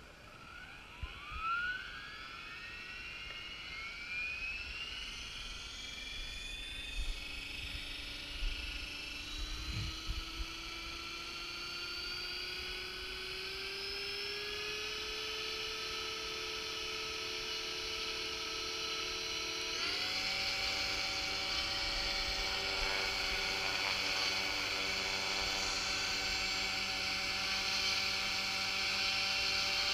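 Align T-Rex 450 electric RC helicopter spooling up on the ground: a motor-and-rotor whine that rises steadily in pitch over about fifteen seconds, steps up sharply around twenty seconds in, then holds as a steady high whine. A few dull thumps sound in the first ten seconds.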